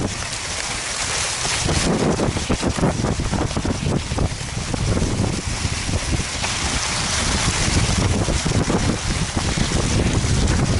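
Wind buffeting the microphone of a head-worn camera on a moving cross-country skier, a loud, steady rush with irregular scrapes and knocks from skis and poles on the snow.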